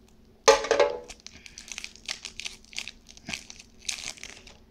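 Foil Pokémon Steam Siege booster pack being torn open, with one loud rip about half a second in, then repeated crinkling of the foil wrapper as the cards are pulled out.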